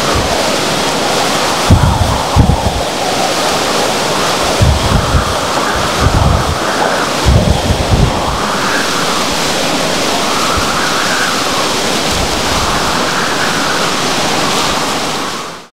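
Hurricane wind blowing hard through palm fronds over heavy surf pounding the beach: a loud, steady rushing noise that swells and eases every couple of seconds. Gusts hit the microphone as low thumps several times, and the sound stops abruptly near the end.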